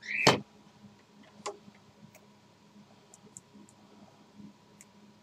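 Knife cutting a small notch out of one conductor of flat TV twin-lead: one sharp snap at the start, a click about a second and a half in, then a few faint scattered ticks.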